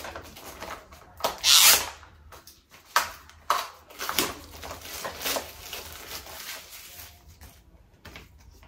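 Plastic film wrap being torn and peeled off a cardboard product box: irregular crinkling and scraping rustles, the loudest and longest one about a second and a half in, thinning out near the end.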